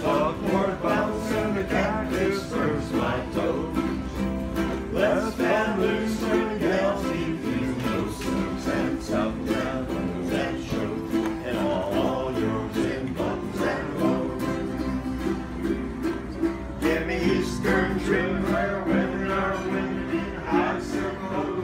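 Ukuleles and an acoustic guitar strummed together in a steady rhythm, playing a song as a small live group.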